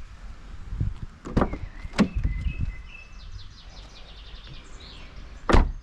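The driver's door of a BMW E39 sedan unlatching with sharp clicks and swinging open, with a loud thump near the end.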